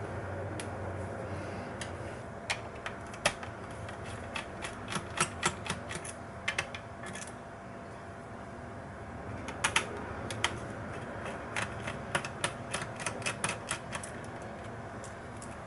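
Irregular runs of sharp clicks, bunched in quick clusters with pauses between, over a steady low hum.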